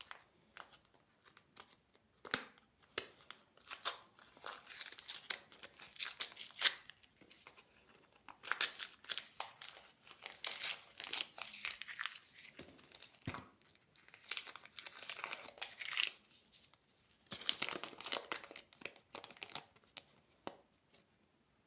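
Plastic candy wrappers crinkling and being torn open by hand, in irregular bursts of crackling with small clicks between them.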